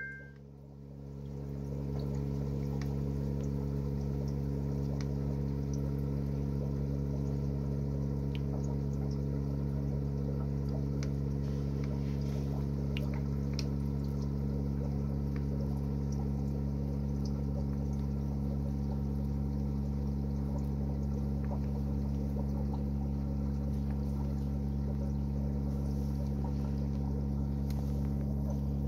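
Aquarium pump running with a steady hum and a faint watery hiss, with a few faint ticks now and then.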